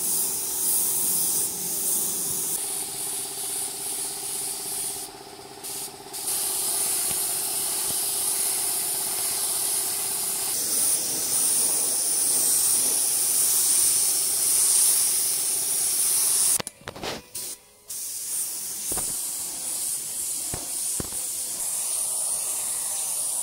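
Gravity-feed spray gun hissing with compressed air as it sprays paint, in long passes broken by short stops about five seconds in and again about seventeen seconds in. A low steady hum runs under it for the first ten seconds or so.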